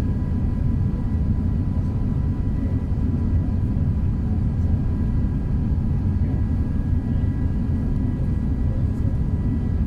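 Cabin noise inside an Airbus A380 in flight: a steady low rumble of airflow and its Rolls-Royce Trent 900 engines, with a few faint steady whining tones above it.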